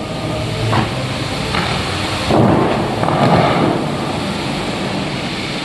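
Water from fountain jets rushing and splashing down in a steady roar, with a few louder surges, the biggest a little past two seconds in.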